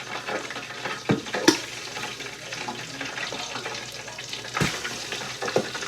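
Flour-coated chicken frying in hot grease in a pot: a steady sizzle with a few sharp pops. The grease is very hot, perhaps a little too hot, as the cook suspects.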